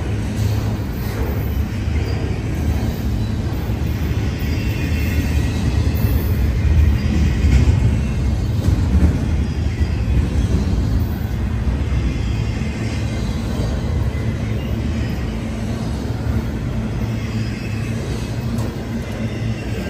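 Double-stack intermodal container freight train passing close by: a steady low rumble of the well cars' wheels on the rails, swelling a little about eight seconds in, with faint high tones coming and going.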